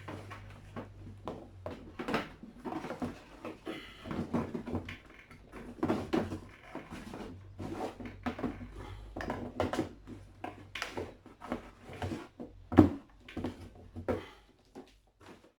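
Irregular clicks and knocks of a household steam cleaner and its attachments being handled, over a steady low hum that stops near the end.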